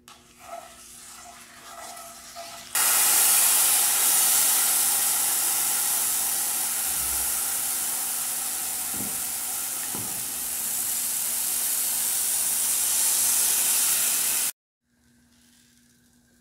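Banana pancake batter sizzling steadily in a hot buttered non-stick frying pan. The sizzle starts suddenly about three seconds in and cuts off suddenly shortly before the end.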